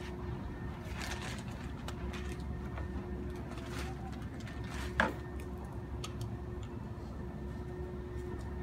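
Hands working inside a glass terrarium: faint clicks and rustles, with one sharp knock about five seconds in, over a steady low hum.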